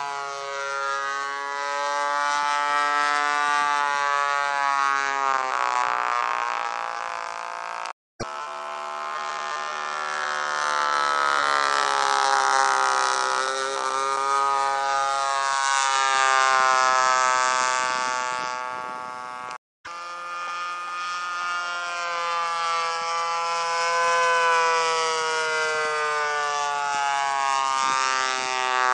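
Radio-controlled model airplane's engine droning overhead, its pitch slowly rising and falling as the plane flies and the throttle changes. The sound cuts out completely for a split second twice, about 8 and 20 seconds in.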